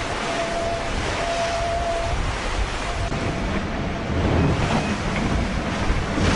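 Wind and rushing water heard aboard a racing trimaran sailing fast at sea in heavy weather: a loud, steady rush. A thin steady whistle comes and goes during the first few seconds.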